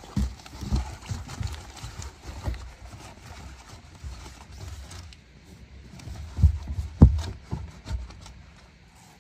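Irregular thumps and rustling as an inflated sleeping pad is handled and pushed down into a car's trunk, with a cluster of knocks at the start and another about six and a half to seven and a half seconds in.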